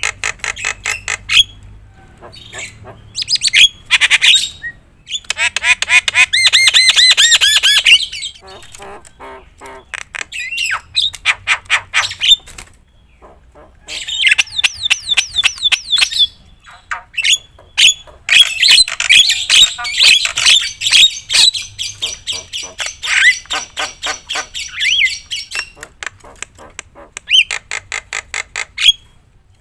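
Javan myna (jalak kebo) singing loudly: rapid runs of harsh clicking notes mixed with whistled, gliding phrases, in bursts of a few seconds with short pauses between them.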